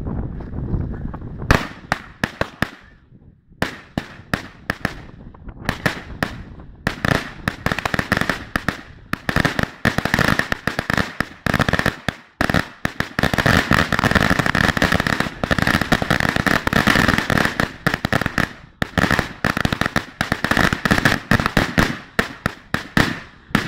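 A chain of Spanish-style firecrackers (Truenos and Trueninos) going off: a few sharp bangs start about a second and a half in, then a rapid, dense run of cracks and bangs goes on for about fifteen seconds and stops abruptly near the end.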